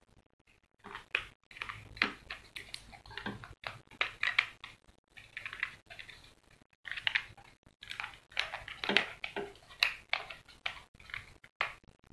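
Hard plastic parts of a chest-strap phone-holder mount being handled and fitted together: irregular small clicks, taps and scrapes, with a short lull just past the middle.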